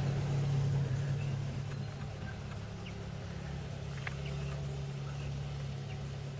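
Chevrolet Niva SUV's engine running as it drives off across grass, a steady low hum that slowly fades as it moves away.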